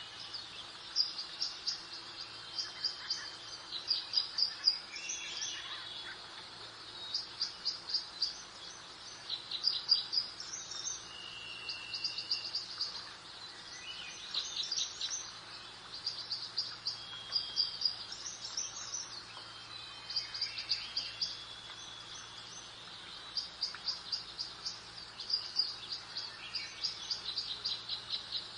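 Songbirds singing: runs of rapid high chirps every second or two, with occasional short whistled notes, over a steady soft hiss of outdoor background.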